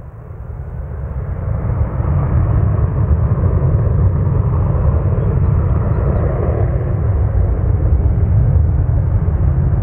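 Boeing 737-800's CFM56 jet engines running at high power as the airliner rolls down the runway. A loud, deep rumble that builds over the first two seconds and then holds steady.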